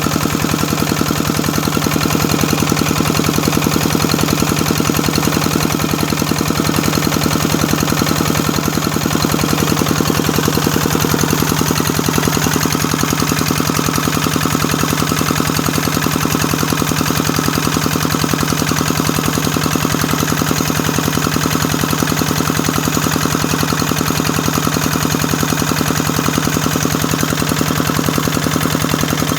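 Kubota engine running steadily at a constant speed, its rapid, even firing pulses loud and unbroken.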